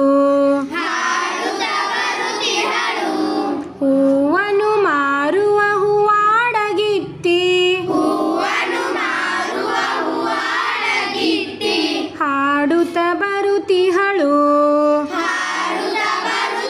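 Schoolchildren and a woman singing a Kannada song together, unaccompanied. Passages of one clear voice alternate with the whole group singing, as a leader sings a line and the children repeat it.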